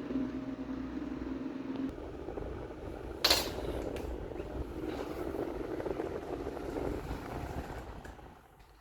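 Mallory Boreal 30 cm, 220 V table fan running with a steady hum and the vibration of its unbalanced replacement blade. The hum stops about two seconds in and a sharp click follows a second later. The whir then fades away near the end as the blade winds down.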